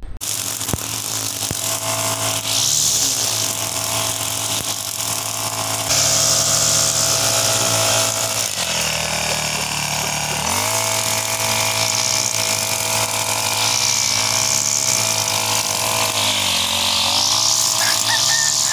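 Backpack brush cutter's small engine running hard while its blade cuts through tall grass. The engine note drops and climbs back up twice as the throttle is eased and reopened, about halfway through and again near the end.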